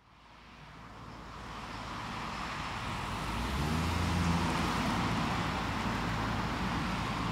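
Road traffic noise fading in from silence over the first few seconds, with a vehicle's low engine hum coming up around the middle.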